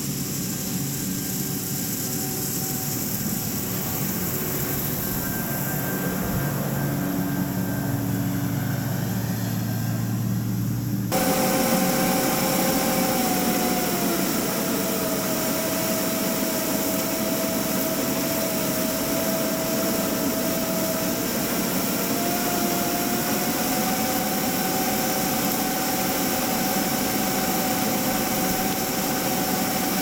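John Deere cotton picker running while harvesting. For the first ten seconds or so it is heard from a distance and growing louder; after an abrupt cut it is heard up close from the machine's front, loud and steady, with a whine that dips slightly in pitch for a few seconds and then comes back up.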